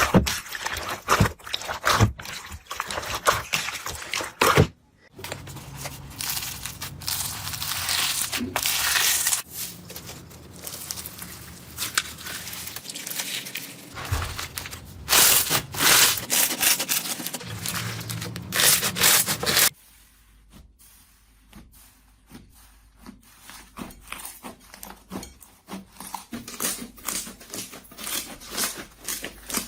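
Slime being squished and stretched, making rapid sticky clicks, crackles and pops. The texture changes abruptly about five seconds in and again near twenty seconds, where it turns quieter, with sparser clicks.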